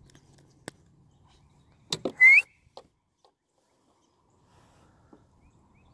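Handling noise from a largemouth bass being held in the hands: a couple of faint clicks, then about two seconds in a loud, brief rubbing scuffle with a short rising squeak in it.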